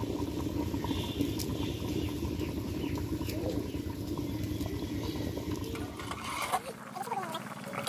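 Small knife cutting fresh coriander leaves on a paper plate, a few light taps over a steady rustling background noise. Near the end the low noise drops away and a brief voice-like call is heard.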